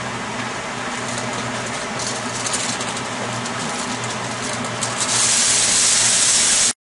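A sheet of kitchen wrap pulled from its box with a few light rustles and clicks, then crinkling loudly over an aluminium foil pan for the last second and a half before cutting off suddenly. Under it all runs a steady low hum and hiss.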